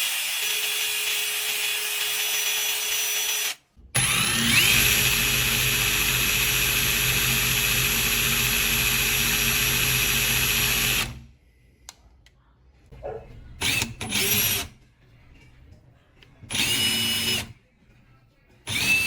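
HiKOKI cordless impact driver running free under the trigger, with a high motor whine. There is one run of about three and a half seconds, then a longer run of about seven seconds that spins up with a rising whine and holds steady. These are followed by several short trigger blips.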